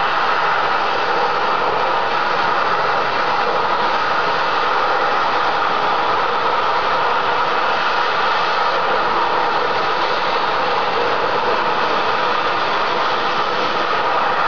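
Steady, unbroken hiss of high-pressure gas blowing uncontrolled out of an oil drilling rig's well during a blowout.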